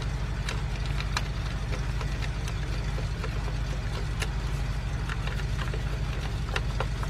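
A steady, evenly pulsing engine hum, with scattered light clicks and knocks of parts being handled.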